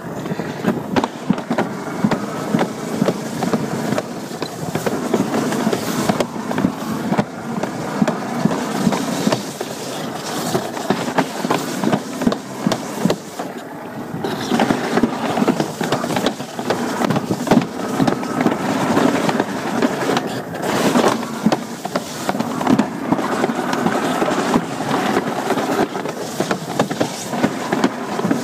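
Alpine slide sled rumbling and rattling down the slide's trough at speed, with many irregular knocks and bumps.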